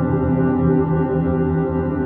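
Ambient background music of long, steady held tones.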